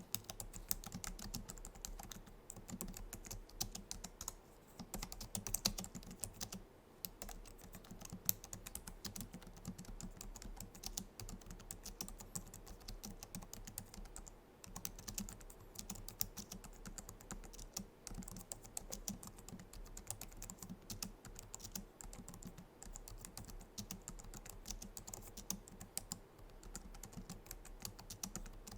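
Continuous fast typing on a Logitech MX Keys keyboard, its low-profile scissor-switch keys clicking softly in quick runs with a few brief pauses, around 5, 7 and 14 seconds in.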